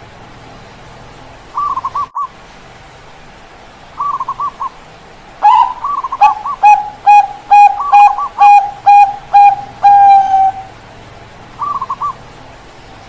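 Zebra doves (Bangkok-bred perkutut) cooing. Short rolling coos come a couple of times, then a long run of about ten clipped notes ending in one drawn-out note, and one more short rolling coo near the end.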